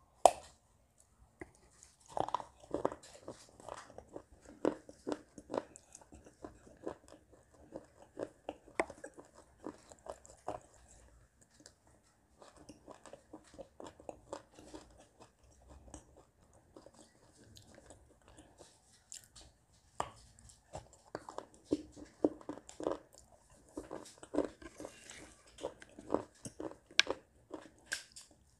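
A person biting and chewing a crumbly brown mixture close to the microphone: crisp crunches and wet chewing clicks. Louder bites come right at the start, about two seconds in, around twenty seconds and near the end, with quieter chewing in between.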